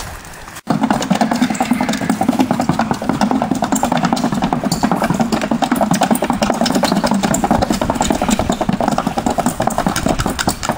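Rapid, even drumming of a gaited horse's hooves on a wooden sounding board, starting about a second in after a brief gap.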